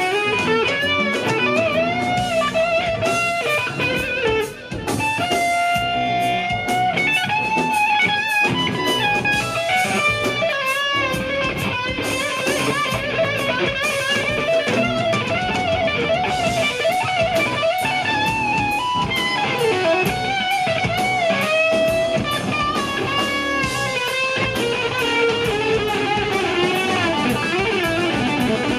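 Live rock trio playing: an electric guitar takes the lead with long bent notes and vibrato over bass guitar and drums. The sound briefly drops out about four and a half seconds in.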